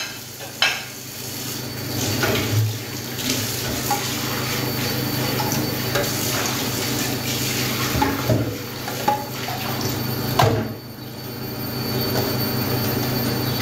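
Kitchen tap running into a sink while dishes and glasses are washed, with clinks of crockery and glass and a few sharper knocks.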